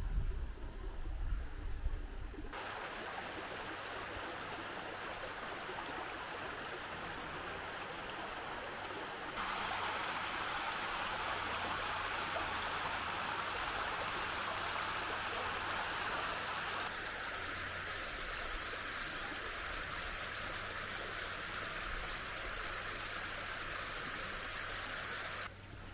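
Running water in a stone-lined channel: a steady rushing that grows louder and brighter about ten seconds in and shifts again about seven seconds later. A low rumble is heard at the start.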